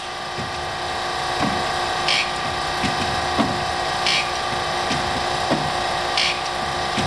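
Warner & Swasey No. 3 ram-type turret lathe running with a steady hum while its hex turret is indexed by hand through its positions. Each stroke of the ram brings a clunk as the turret locks into place. Short hissing bursts come about every two seconds.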